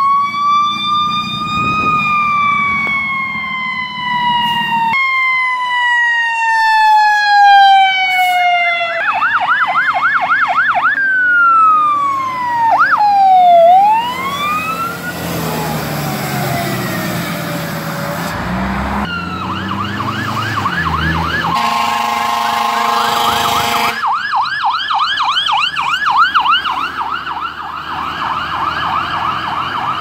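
Emergency vehicle sirens across several short clips: a long wail that rises and then slowly falls, fast yelping warbles, and a wail glide. About two-thirds of the way through, a steady multi-tone air horn blast sounds for two or three seconds, with the vehicles' engines running underneath.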